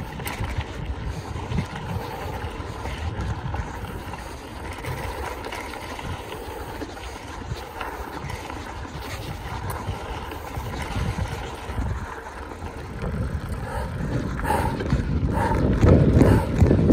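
Wind buffeting the microphone over the rumble of a mountain bike being ridden over rough ground, getting louder from about thirteen seconds in.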